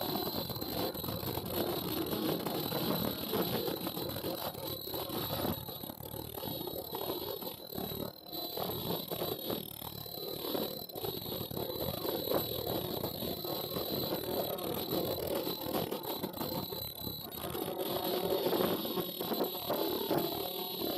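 Tie-on flat mask welding machine and its conveyor running: a continuous mechanical clatter of rapid clicks with a steady high-pitched whine over it.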